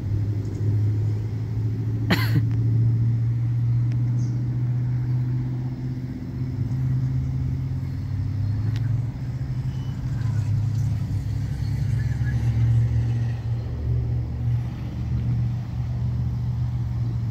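Steady low drone of an approaching GE ES44AH diesel locomotive's engine, with one sharp click about two seconds in.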